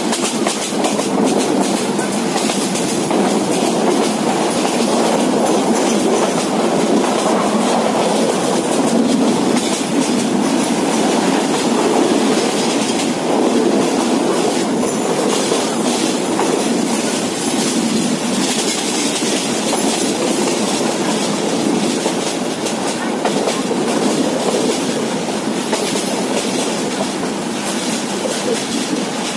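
Passenger train rolling along at speed: a steady rumble of steel wheels on the rails with rapid clicking and a rushing hiss, heard from a coach window.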